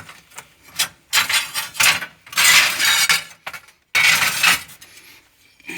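A frog's distress screams in a series of harsh, hissy bursts, the longest nearly a second, the cry of a frog seized by a snake.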